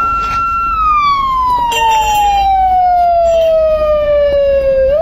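Police siren wailing: a single wail that holds high briefly, slides slowly down in pitch for about four seconds, then starts rising again near the end.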